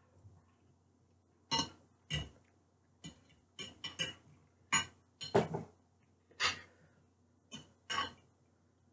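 Close-up eating sounds: a metal fork clinking and scraping against a plate as food is picked up and eaten, heard as about a dozen short, sharp clicks spaced unevenly.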